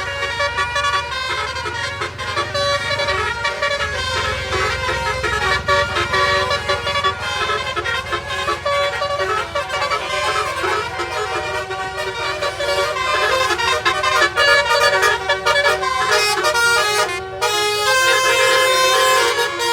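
Indonesian bus 'telolet' basuri horn, a multi-tone horn playing a melody of changing notes, with a low engine rumble underneath.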